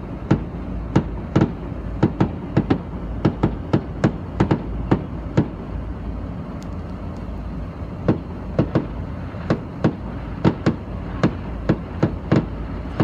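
Fireworks going off, heard from inside a car: a rapid, irregular string of sharp pops and bangs, several a second, thinning out for a couple of seconds midway, over a steady low hum.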